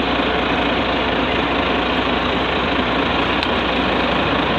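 Truck engine idling: a steady, unbroken running noise.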